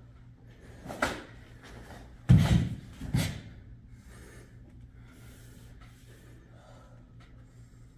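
Karate kata movements: bare feet stamping on the floor and the gi snapping with sharp strikes, a smaller hit about a second in, the loudest thud just after two seconds and another sharp hit soon after, over a low steady hum.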